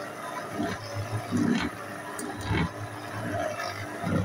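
Electric stand mixer running, its dough hook kneading a stiff dough in a steel bowl: a steady motor hum with irregular knocks as the dough is thrown around the bowl.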